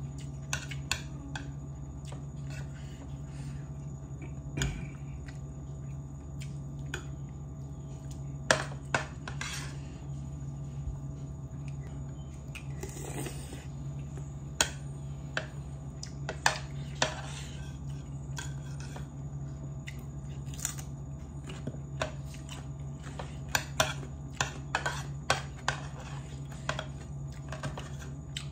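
Scattered sharp clinks and taps of a plate and utensils during a meal of rice and curry, some coming in quick clusters, over a steady low hum.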